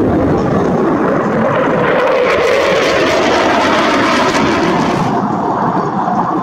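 F-4 Phantom jet fighter flying past, its twin J79 turbojets making loud continuous jet noise. The hissing upper part of the sound swells about two seconds in and falls away after about five seconds as the jet passes.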